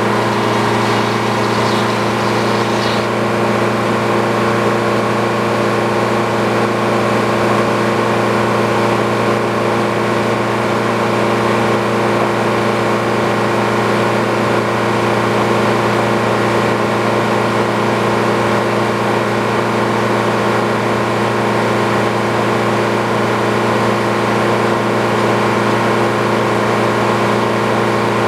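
Sawmill engine running steadily at one constant speed, without changes in load.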